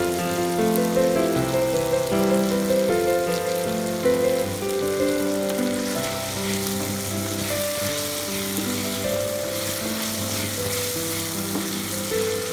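Chopped tomatoes and onions sizzling in hot oil in a frying pan, the hiss growing stronger about halfway through as they are stirred with a wooden spatula. Background music with long held notes plays over it.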